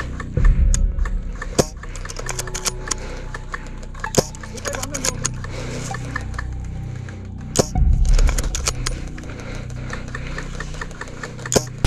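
Dry leaves, twigs and grass crackling and rustling as a player moves through undergrowth, with his gear clattering, and two dull low thumps about half a second and eight seconds in.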